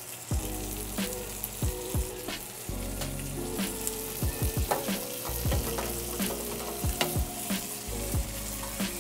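Skin-on chicken thighs frying in olive oil in cast iron pans over medium-low heat, a steady hiss with frequent small pops and crackles as the skin begins to render.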